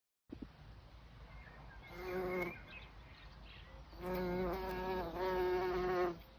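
A bee buzzing close by in flight: a short buzz about two seconds in, then a longer buzz of about two seconds, its pitch wavering slightly.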